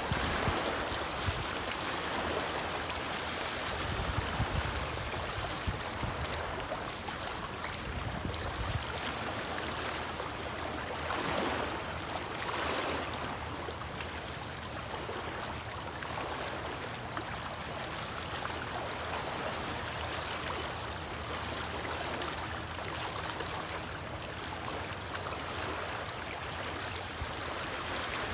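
Small wind-driven waves lapping and splashing against a rocky shoreline, a steady wash of water. Wind buffets the microphone with a low rumble during the first several seconds.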